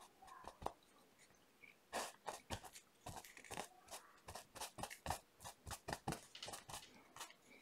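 Paintbrush dabbing short strokes of acrylic paint onto a canvas, giving faint short scratches. A few come at first, then a quick, irregular run of several a second from about two seconds in.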